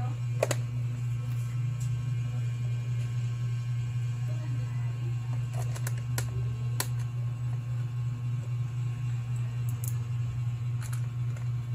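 Plastic bottom cover of an Acer E5-476G laptop being pressed down by hand, its clips snapping into place with a few sharp clicks: one near the start, several about halfway through and two more near the end. A steady low hum runs underneath.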